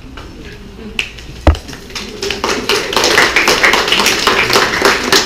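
A single thump about a second and a half in, then a small group of people applauding from about two seconds in.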